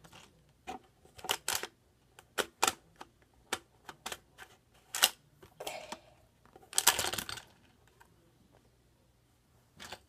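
Irregular sharp plastic clicks and clacks of Hot Wheels Track Builder pieces and a die-cast toy car being handled and fitted together, with a longer scraping rattle about seven seconds in.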